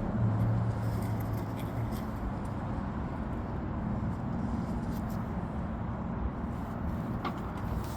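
Steady low rumble of a motor vehicle, with a faint click near the end.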